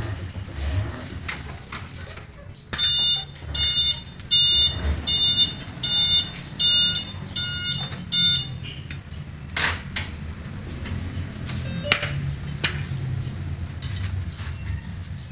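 An electronic beeper sounding about eight evenly spaced beeps, roughly one every three-quarters of a second, then a few sharp knocks over a steady low rumble.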